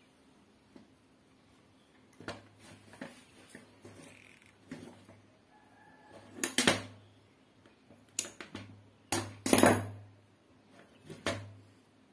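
Handling noise of electrical wire and small tools on a wooden table: scattered light clicks and rustles, with a few louder knocks and clatters about halfway through and again near the three-quarter mark.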